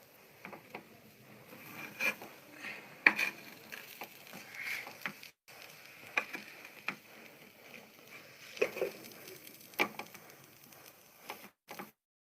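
Quiet eating sounds: scattered mouth clicks and soft smacks, with a sharper click about three seconds in.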